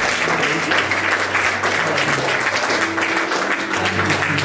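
Congregation applauding, with many hands clapping at once over music of held low notes.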